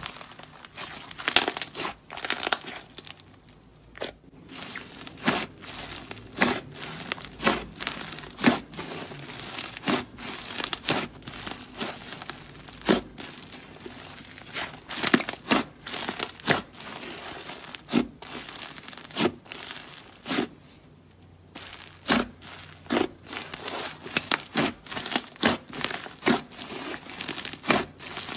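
Thick clay slime being stretched, torn apart and pressed by hand, giving irregular crackly tearing and many sharp little pops.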